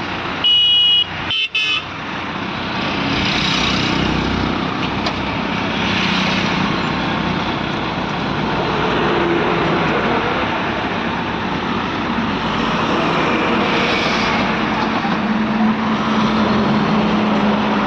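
Diesel engines of ACE hydra mobile cranes running steadily while lifting a loaded truck, with a brief high-pitched beeping tone about a second in and a steady low hum joining near the end.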